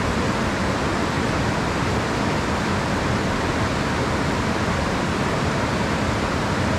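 Steady rush of stream water running over rocks, even and unbroken.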